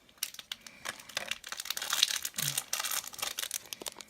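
Hands tearing open and crinkling the packaging of a small Disney Doorables blind box, a run of irregular crackles and rips.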